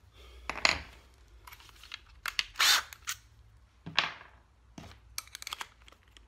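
Scattered clicks and knocks of steel drill and driver bits being handled and set down on a wooden tabletop, with no drill running.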